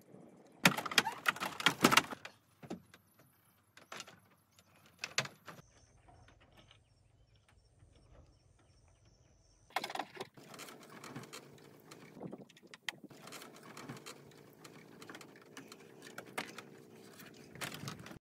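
Bamboo poles knocking and clattering against a bamboo raft: a quick run of sharp knocks near the start, then a few single knocks. After a quiet spell there is a longer stretch of lighter scraping and tapping with scattered knocks.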